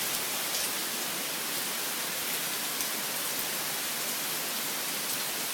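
Steady rain falling during a hurricane, an even hiss with a few faint ticks.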